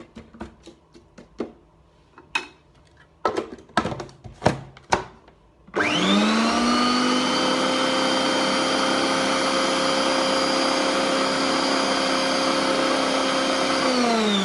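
A run of clicks and knocks, then an electric blender starts about six seconds in and runs steadily with a high motor whine, blending garlic, chilli and spices with lemon into a paste. Near the end it is switched off and starts to wind down, its pitch falling.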